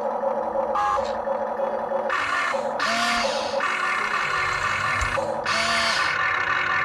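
Huina 1592 RC excavator's small electric gear motors whirring in several short bursts as it moves, over a steady rhythmic pulsing.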